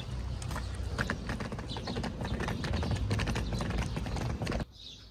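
Irregular clattering clicks over a low rumble, as of something rolling or stepping over stone paving; it cuts off abruptly about four and a half seconds in.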